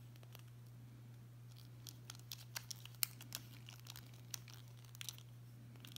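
Small, irregular metal clicks and scrapes of a bit driver working the pivot screw of a folding knife with titanium scales, while the blade's centering is adjusted. A steady low hum runs underneath.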